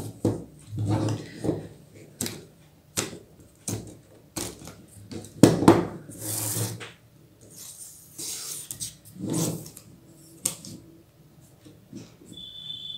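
Telescoping aluminium legs of a Tripod 3110 being pulled out on a table, with scattered clicks and knocks and short sliding rasps as the tube sections and their plastic clamps are handled. The loudest knock comes about five and a half seconds in, and a brief high squeak sounds near the end.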